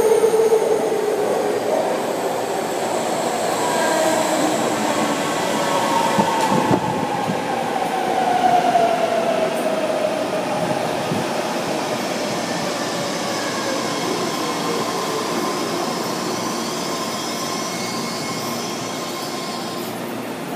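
Eight-car BART subway train pulling into an underground station and braking to a stop. It makes a continuous rumble of wheels on rail with a high whine that falls in pitch as the train slows, then eases off near the end.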